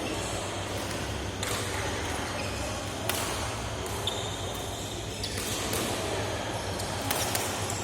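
Game on an indoor court: several sharp hits and a brief shoe squeak on the floor, over a steady low hum of the hall.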